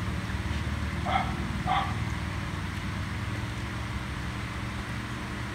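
Two short dog barks, about a second in and again just over half a second later, over a steady low hum.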